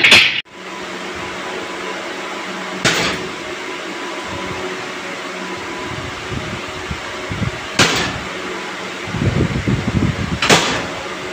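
A steady machine hum, with a loud knock at the start and sharper knocks about three, eight and ten and a half seconds in.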